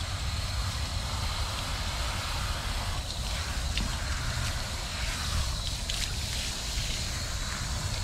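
Garden-hose spray nozzle spraying water onto a dog's wet coat and the concrete, a steady hiss and splatter, over a low rumble of wind on the microphone.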